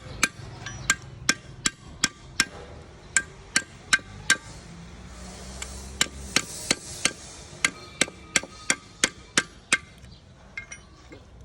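A hammer tapping on metal in a steady series of sharp, ringing strikes, roughly three a second. There is a pause of nearly two seconds about halfway through, filled by a short hiss, and then the tapping resumes.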